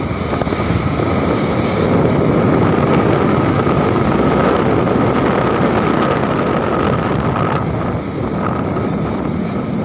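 Heavy truck driving past close by: engine and road noise swelling through the middle and easing near the end, with wind on the microphone.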